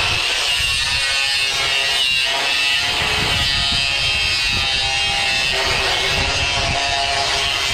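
A power tool running with a steady buzz, with background music playing under it.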